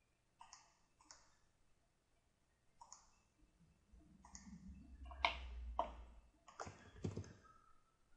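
Computer mouse button clicks, about eight faint, sharp clicks at irregular intervals, some in quick pairs. A low rumble sounds under them for a couple of seconds around the middle.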